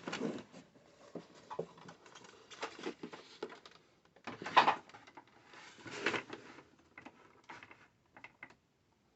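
Scattered clicks, knocks and brief rustles of equipment being handled, with two louder bursts about halfway through, tapering off near the end.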